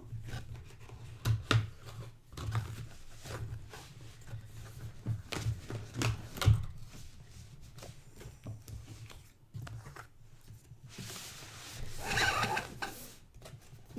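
Cardboard packaging being handled: a scatter of small clicks and scuffs, then a longer scraping rub near the end as box surfaces slide against each other.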